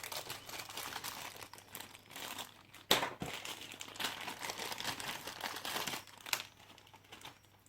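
Crinkling, rustling handling noise, with two sharp clicks: one about three seconds in, one about six seconds in.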